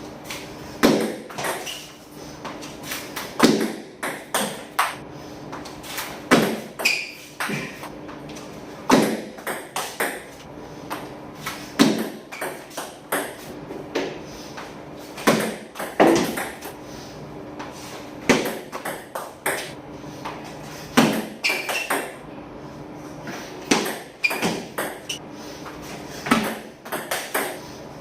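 Table tennis ball clicking off paddle and table in short groups of several quick hits, a new group about every three seconds, over a faint steady hum.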